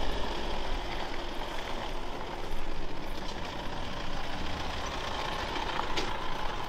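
A vehicle running, with a steady hiss of road and engine noise.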